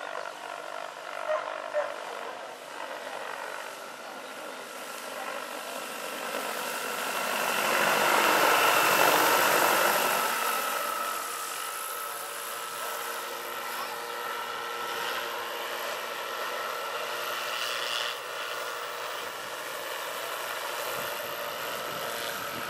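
Large electric scale model Hughes 500 helicopter (2.65 m rotor) in flight: a steady whine from its electric drive and rotor, swelling to its loudest around 8 to 10 seconds in as it passes close, then steady again. Two brief sharp sounds come about a second and a half in.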